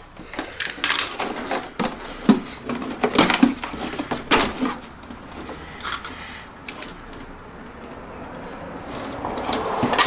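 Utility knife scoring along a plastic rear cover and the scored notch being broken out: a run of irregular scraping clicks and sharp cracks, thinning out after about five seconds.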